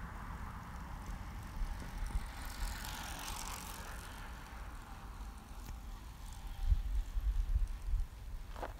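A bicycle going by on an asphalt road, a soft tyre hiss that swells and fades about three seconds in, over a steady low rumble, with louder low thumps on the microphone near the end.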